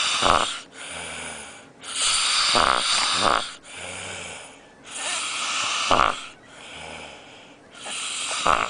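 A man snoring heavily in deep sleep: about every three seconds a loud, noisy snore ending in a sharp snort, then a quieter low hum before the next one.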